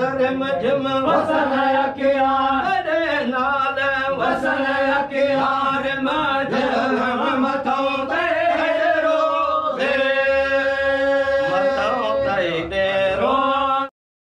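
Voices chanting a naat, an Islamic devotional poem in praise of the Prophet, as a flowing melody over a steady held note. It cuts off suddenly near the end.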